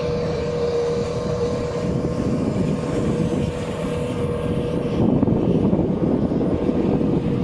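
Boat motor running steadily with an even drone. A rushing noise gets louder about five seconds in.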